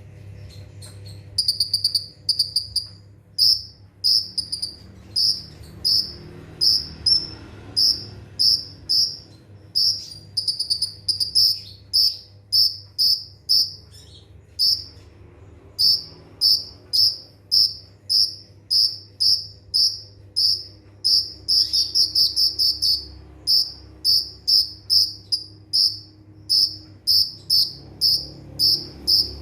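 Kolibri ninja sunbird calling in a rapid, tight series of short, high, pure notes, about two a second, starting about a second and a half in.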